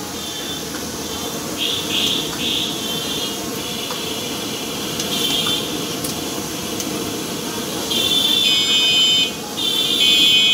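Potato sticks sizzling and bubbling in a large wok of deep-frying oil, a steady hiss. High, buzzer-like tones come in briefly about two seconds in, again around five seconds, and for longer near the end.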